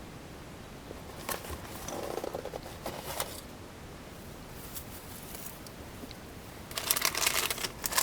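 Crinkling and rustling of packaging being handled, with a few light clicks. It gets louder and denser near the end.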